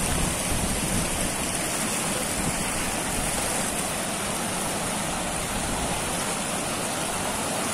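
A full lake spilling over a low concrete overflow weir: a steady rush and splash of falling water.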